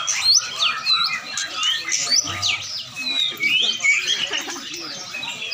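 Many caged songbirds chirping, squawking and whistling over one another in a dense, busy chorus of quick rising and falling notes.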